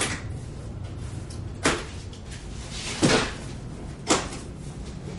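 Cardboard grill packaging being cut open with a knife and pulled apart: a few short, sharp rasps and knocks about a second apart, the loudest about three seconds in.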